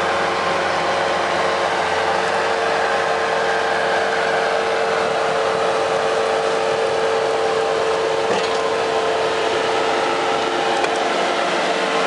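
Bobcat skid-steer loader running a snowblower attachment while it throws snow: a loud, steady engine-and-blower noise with a constant hum.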